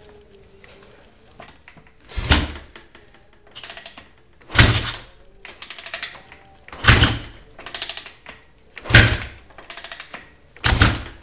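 Honda TRX450R engine being kicked over five times, about every two seconds: each kick a heavy thump as the engine turns through, with lighter rattles of the kick lever between. It never fires: the quad has no spark, and the stator is putting out almost no voltage.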